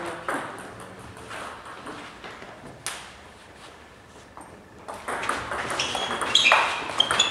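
Table tennis ball clicking off bats and table in a doubles rally. There are a few scattered clicks in the first three seconds, then a lull. From about five seconds in comes a quick run of clicks with a few short high squeaks.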